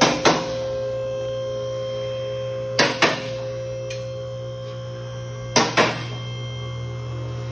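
Background music: a steady droning tone with a pair of sharp percussive hits about every three seconds.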